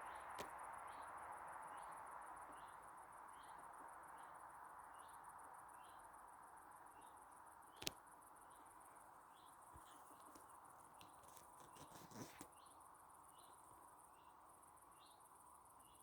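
Faint evening insect chorus: continuous high, pulsing stridulation, with a short chirp repeating about one and a half times a second. A few sharp taps cut through, one about halfway and a short cluster about three-quarters of the way in.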